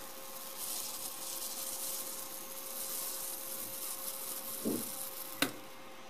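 A thin film of water boiling and sizzling on a plate heated by a flat induction coil, with a faint steady hum under it. The sizzle fades near the end, and a sharp click follows.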